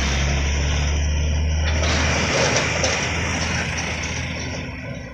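Heavy diesel sugarcane trucks passing close by. The low engine drone is loud, then fades over the last couple of seconds as a truck-and-trailer pulls away up the bend.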